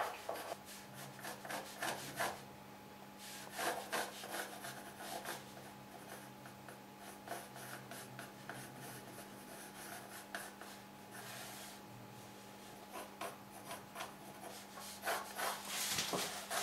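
Pencil scratching across a wooden board in short, irregular sketching strokes, with the hand rubbing along the wood.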